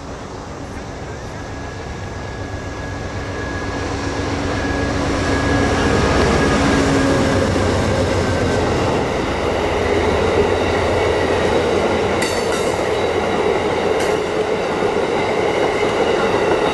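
Amtrak passenger train led by a GE Genesis diesel locomotive, the engine growing louder as it comes closer over the first six seconds. The passenger cars then roll past with a steady rumble of wheels on rail, with two sharp clacks near the end.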